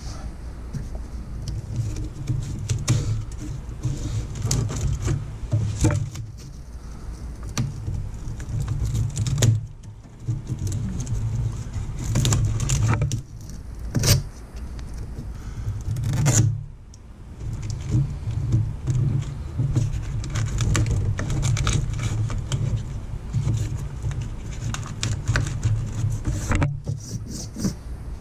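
Brittle plastic loom on a Jeep wiring harness crackling and rustling as it is broken and peeled away by hand: irregular crinkling and snapping over a low rumble that drops out a few times. The plastic has gone brittle from engine heat and is crumbling.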